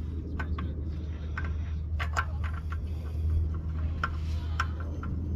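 Scattered light clicks and scrapes of a spin-on oil filter being threaded onto its mount by a gloved hand, over a steady low hum.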